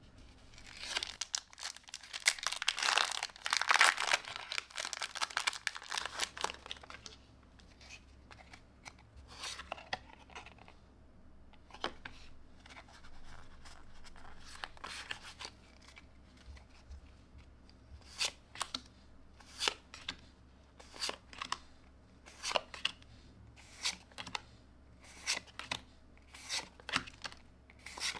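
Foil Pokémon booster pack torn open, a loud crinkly tearing for several seconds. Quieter rustling of the trading cards being handled follows. From about two-thirds of the way in comes a regular run of short sharp card snaps, about one a second, as cards are slid one by one from the front of the stack to the back.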